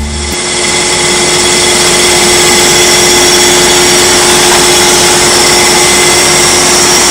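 A boat's engine running at a steady cruising speed, a loud, even drone with a constant hum that builds over the first second and then holds.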